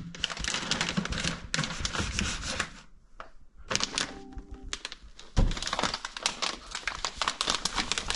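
Handling noise: a dense, rapid clatter of clicks and crinkles as things are moved about and packed away, with a short lull about three seconds in.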